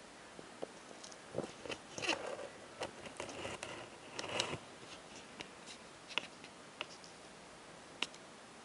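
Soft rustling and scratchy clicks of a woolly blanket being disturbed, bunched together for a few seconds from about a second in, then a few single clicks, over a steady faint hiss.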